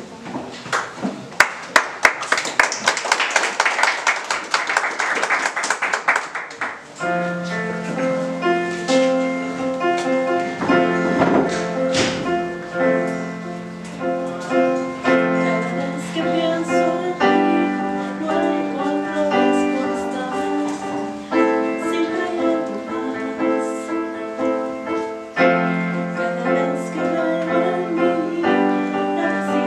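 Audience applause for about the first seven seconds, then an electronic keyboard with a piano sound starts a slow introduction of held bass notes and sustained chords under a simple melody.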